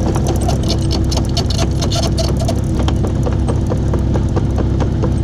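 IHI 80NX excavator's diesel engine running steadily, with many sharp metallic clicks and clanks over it, thickest in the first half.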